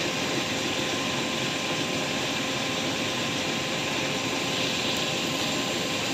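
Homemade motor-generator rig running steadily: a rewound e-rickshaw motor on a 36-volt battery spinning a large belt-driven flywheel and a permanent-magnet generator. It gives an even whir with a thin constant whine.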